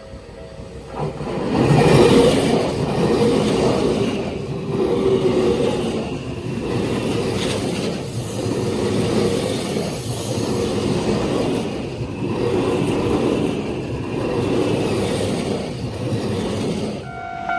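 Hankyu electric train passing close by, a loud rumble and clatter of wheels on rails that sets in about a second in and rises and falls as the cars go by.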